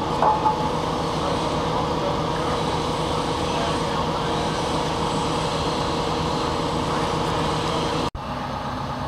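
Diesel engine of a 250-tonne mobile crane running steadily under load while it holds up a 75-tonne workboat, a continuous drone with a steady hum through it. It cuts out for an instant about eight seconds in and comes back a little quieter.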